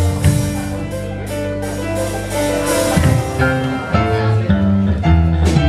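A live rock band playing: electric guitar and electric bass over a drum kit with cymbals, the bass moving through loud low notes.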